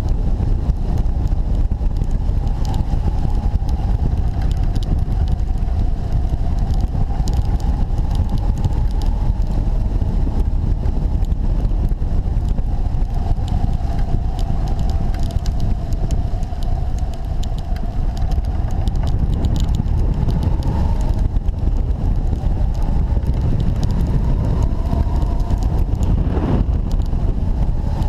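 Airflow buffeting the microphone of a camera mounted on a hang glider in flight: a loud, steady low rumble of wind noise. A faint whistle that slowly wavers up and down in pitch runs underneath.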